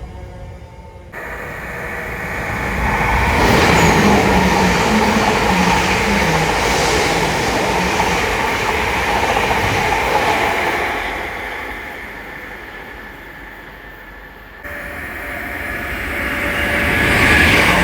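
Train passing at the platform: the sound swells to its loudest about 4 seconds in, stays loud for several seconds with a stepping low tone underneath, then fades. The sound changes abruptly about a second in and again near the end, where another train's sound builds up.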